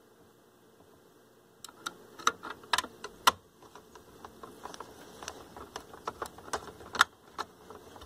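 Irregular sharp metal clicks and light taps of a magnetic screwdriver working a small screw into the sheet-metal dial-lamp bracket of a stereo receiver. They start after a short quiet spell, uneven in spacing and loudness.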